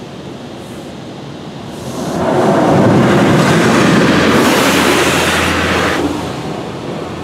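PDQ LaserWash 4000 touchless car wash spraying water onto the car, heard from inside the cabin: a steady rush of spray that swells loud about two seconds in, holds for about four seconds, then fades.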